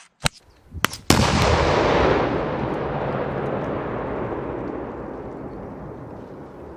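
A small click as the fuse igniter is pulled. About a second in, a demolition charge detonates with a sharp blast, and a long rumble follows that slowly fades away.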